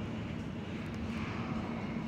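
New York City subway train running in the station: a steady low rumble with a constant hum.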